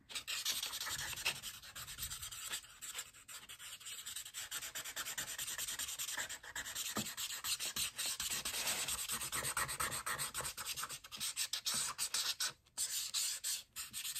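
Black felt-tip marker scribbling quickly back and forth on a paper plate to fill in a large solid spot: a dense run of rapid scratchy strokes, with a couple of brief pauses near the end.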